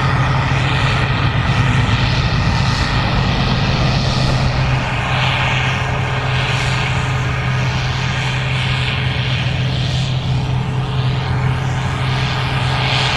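Gleaner R65 combine running while harvesting corn: a steady engine drone with a deep hum, over which a hiss swells and fades every second or so.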